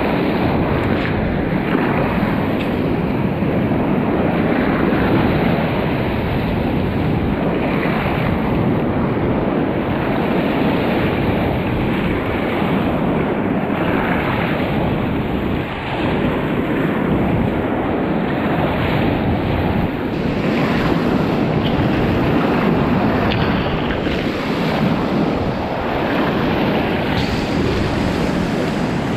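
Rushing, splashing whitewater of a standing river wave breaking around the bow of a small paddled boat as it surfs, a steady loud wash that swells and eases. Wind buffets the microphone.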